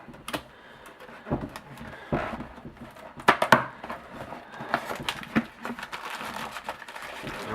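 Cardboard packaging being handled and opened: scattered rustles, scrapes and light knocks, with a sharp pair of knocks about three and a half seconds in.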